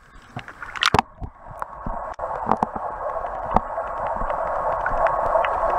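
A camera plunging into lake water with a short splash about a second in, then the muffled rushing sound of the water heard through the submerged camera, with scattered clicks and ticks, slowly growing louder.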